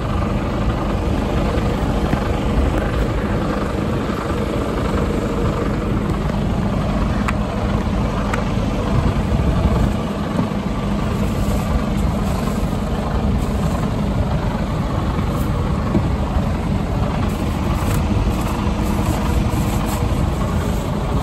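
Heavy truck's diesel engine running steadily, a constant low hum with no change in speed.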